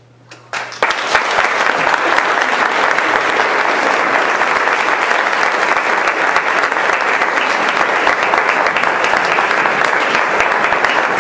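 Audience applauding: a few first claps, then full, steady applause from about a second in.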